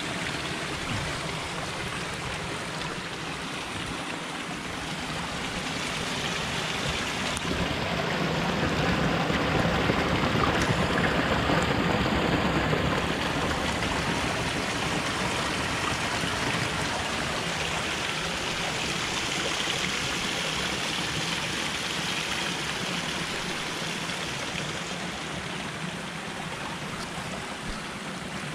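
Steady rush of flowing water, like a stream, growing louder for a few seconds about a third of the way through and then settling back.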